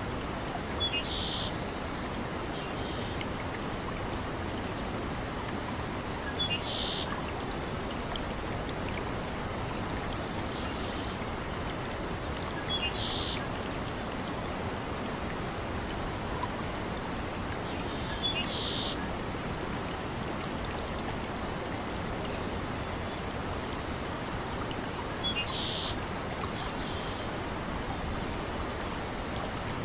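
Steady rushing of running water, like a stream. A short high bird chirp repeats about every six seconds.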